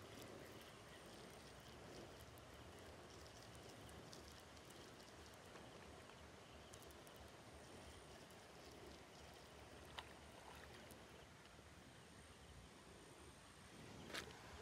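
Near silence: faint outdoor hiss, with a single sharp click about ten seconds in and a short knock near the end.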